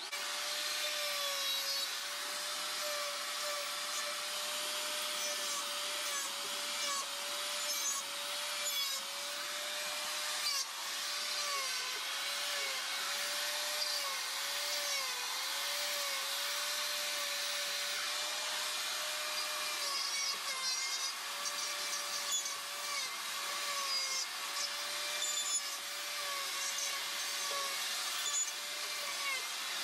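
Electric die grinder with a half-inch carbide flame burr on a quarter-inch shaft, running steadily and grinding wood with a high hiss. The motor's tone sags briefly again and again as the burr is pressed into the wood.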